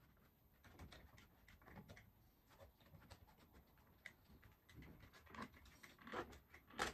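Stanley one-handed bar clamps being set on a worktable and tightened by squeezing their trigger handles: faint, scattered clicks and knocks of plastic and metal, with one louder knock near the end.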